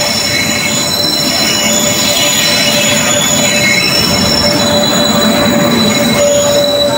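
Indian Railways express train arriving alongside the platform behind a WAP-7 electric locomotive: a loud steady rumble of the locomotive and coaches rolling past, with a high, steady squeal from the wheels and brakes.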